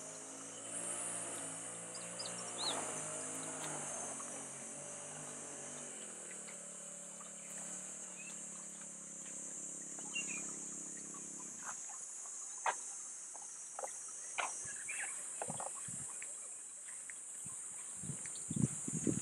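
Insects buzzing steadily at a high pitch. Under them runs a low, steady engine hum that stops about two-thirds of the way through, leaving light footsteps crunching on a dirt path.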